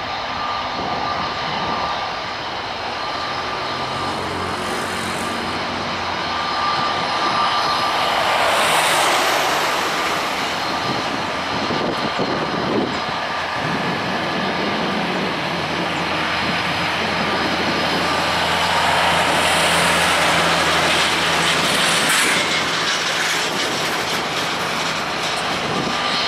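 Boeing 737-800's CFM56-7B turbofan engines at takeoff thrust during the takeoff roll: a continuous loud jet noise with a steady whine through it, swelling louder twice as the aircraft accelerates away.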